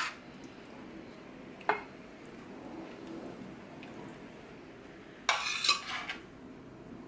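A serving utensil clinks once against dishware about two seconds in, then clatters briefly a little past five seconds in, as more stir-fried vegetables are spooned onto a plate.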